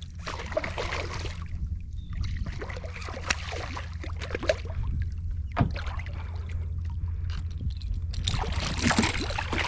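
Water splashing and sloshing beside a kayak in three bursts, over a steady low rumble.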